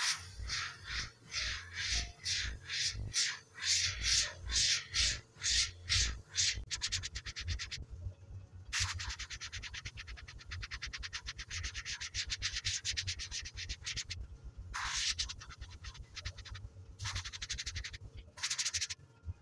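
Airbrush spraying thinned paint at about 20–30 psi. The hiss comes in quick short bursts for the first six seconds or so, then runs as a longer steady hiss, then ends in three short bursts near the end, as the trigger is worked on and off. A softer low pulsing runs underneath.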